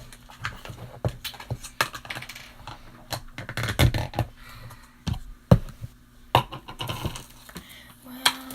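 Soft butter slime being squished and poked by hand, giving irregular clicks, pops and squelches, busiest about halfway through. Right at the end a voice starts humming.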